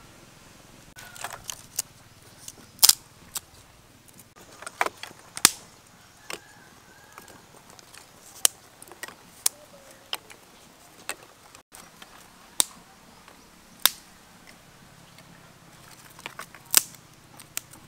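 Sharp, irregular snaps and cracks of small dry twigs, roughly one a second, as kindling is broken and catches alight in a clay wood-burning stove.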